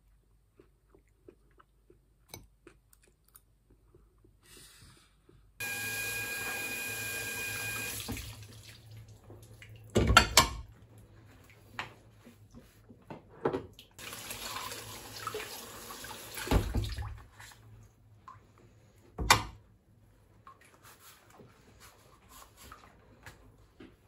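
Kitchen sink tap running twice, with loud clattering knocks of dishes being washed and set into a wooden dish rack.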